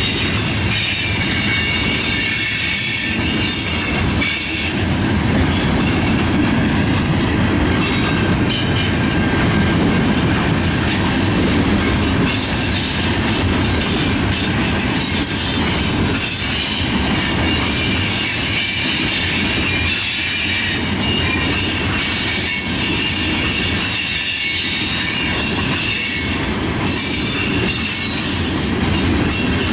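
Freight train tank cars rolling past: a steady rumble of steel wheels on the rails, with a high-pitched wheel squeal running over it.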